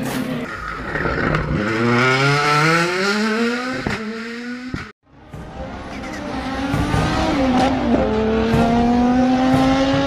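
A World Rally Car's 1.6-litre turbocharged four-cylinder engine accelerating hard, its note rising, dropping once at a gear change about a second and a half in, and rising again. The sound cuts off abruptly about five seconds in. After a brief gap, a race-car engine note climbs slowly and holds.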